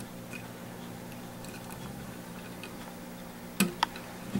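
Small metal clicks of a hex key working the trigger over-travel adjustment screw in a pistol's aluminium grip frame: faint ticks, then two sharper clicks about three and a half seconds in and another near the end, over a low steady hum.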